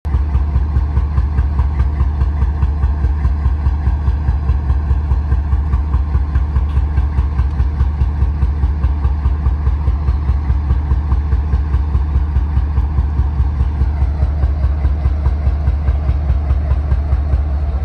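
Diesel engine of a BNSF diesel-electric locomotive running at a standstill: a loud, steady low throb with an even pulse several times a second and a hum above it.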